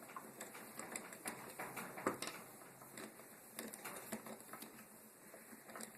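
Light clicks, taps and scrapes of a wall outlet's metal mounting strap and screws being handled and lined up against the electrical box, with one sharper click about two seconds in.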